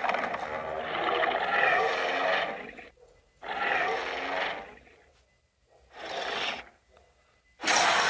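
Godzilla roar and growl sound effects from the 2014 film: a long rasping roar of about three seconds, a shorter one of about a second and a half, and a brief growl, each separated by a short silence. Another loud roar begins near the end.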